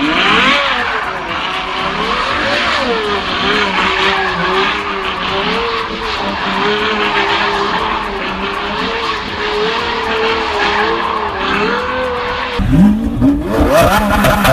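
Ferrari F12berlinetta's V12 revving up, then held at high revs with a wavering pitch while the rear tyres spin and screech through smoky donuts. Near the end the sound cuts to another engine revving sharply upward.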